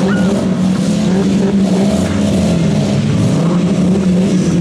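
Several demolition derby cars' engines running hard together while the cars spin their wheels on the dirt and grass, a dense, steady engine din.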